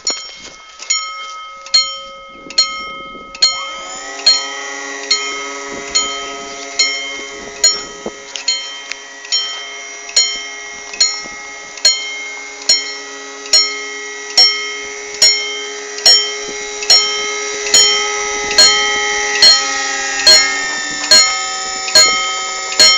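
Level crossing warning bells striking steadily, a little faster than once a second, each stroke ringing on. The ringing grows fuller about three and a half seconds in, as a second tone joins: the crossing's warning cycle before the barriers come down for a train.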